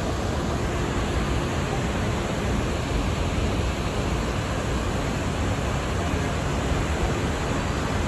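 Snoqualmie Falls, a large waterfall, rushing: a steady, unbroken noise of falling water and spray.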